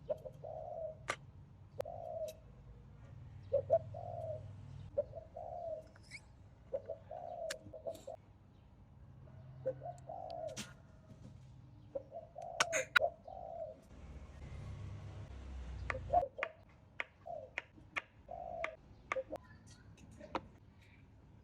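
A bird repeatedly giving short, hollow cooing notes, about one a second, over scattered sharp clicks and taps. About two-thirds of the way through, a brief rushing noise with a low rumble.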